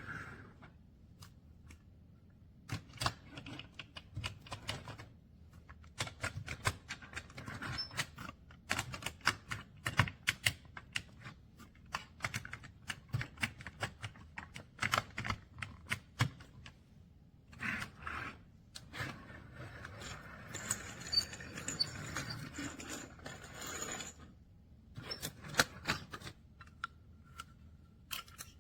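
Small hard toy pieces being handled, giving irregular clicks, taps and light clatter, with a denser rustling stretch near the end.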